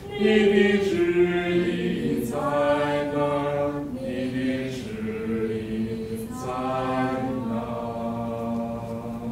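A small congregation of men's and women's voices singing the closing hymn in slow, held notes that change about once a second, with the last phrase held long near the end.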